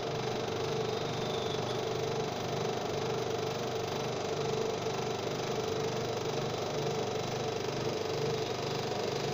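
3 hp three-phase electric hoist motor of a 300 kg mini 'monkey' crane running steadily, winding in its wire rope to lift a loaded wheelbarrow. It holds a constant tone with a pulsing lower hum.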